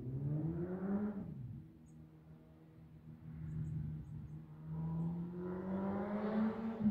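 Motorcycle engine heard out of sight: its pitch climbs under acceleration, then drops sharply about a second in. After a quieter stretch, a steady engine note grows louder toward the end as the bike approaches.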